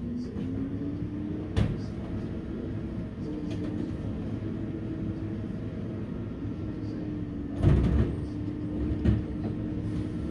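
Garbage truck's engine and hydraulics running with a steady whine that rises slightly in the first second as the cart tipper lifts and dumps a plastic wheeled recycling cart. Sharp bangs from the cart and the tipper come about a second and a half in, loudest near eight seconds, and again about nine seconds in.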